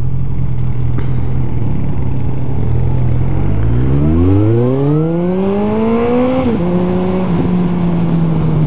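Motorcycle engine idling, then revving up as the bike pulls away, its pitch rising for about three seconds. The pitch drops suddenly at an upshift about two-thirds of the way in, then holds steady.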